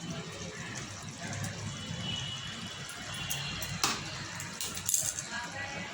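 Water running steadily, with two sharp knocks about four and five seconds in.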